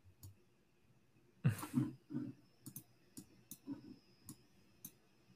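Computer mouse clicks, short and sharp, coming irregularly about two a second while a screen share is being adjusted, with a soft thump about one and a half seconds in.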